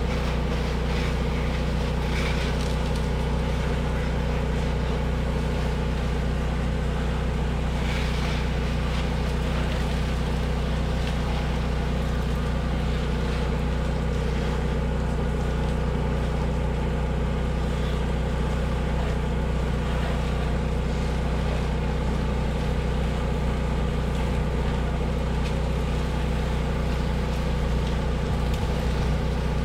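Small gas engine of a pressure-washing rig running steadily at an even speed, with water spraying from a hose as the siding is rinsed.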